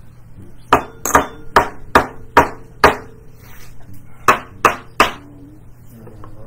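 Nine sharp smacks in two runs: six in a steady rhythm about twice a second, then after a pause of about a second and a half, three more a little faster.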